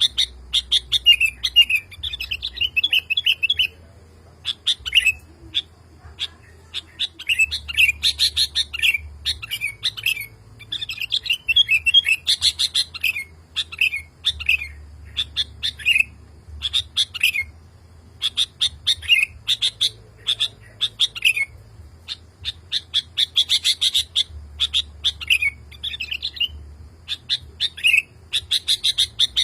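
Male sooty-headed bulbul singing in repeated bursts of quick, chirpy notes, with short pauses between the phrases: a male calling to a female.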